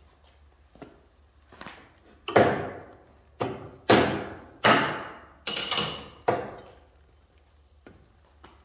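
Sharp metal knocks and clanks from the steel spindle parts and table rings of a Felder CF 741s shaper being handled during a spindle swap. About half a dozen loud strikes come in quick succession from a couple of seconds in, each ringing off briefly, with a few fainter taps before and after.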